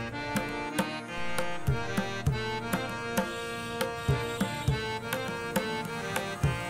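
Background instrumental music: sustained melodic notes over a regular drum beat.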